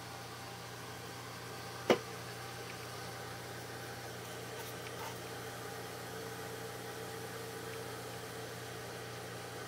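Steady machine-like hum and hiss of background noise, with a single sharp knock about two seconds in.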